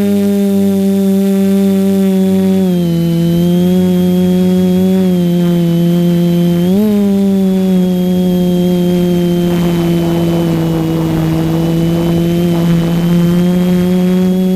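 Multirotor drone's electric motors and propellers whirring in flight, a steady pitched drone that drops in pitch about three seconds in and briefly rises near seven seconds. A rush of wind noise joins it from about ten to thirteen seconds.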